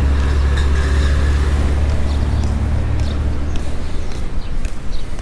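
A motor vehicle's low engine rumble close by, fading out about three to four seconds in, leaving light street noise.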